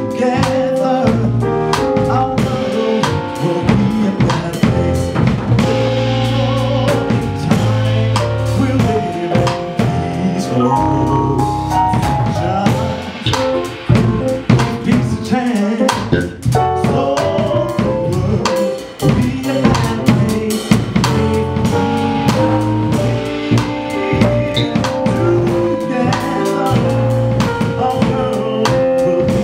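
Small jazz band playing live: drum kit, electric bass and keyboards, with a male vocalist singing at the microphone.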